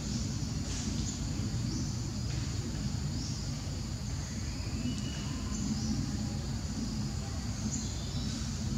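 Outdoor background noise: a steady low rumble with a continuous high hiss, and a few faint chirps about halfway through.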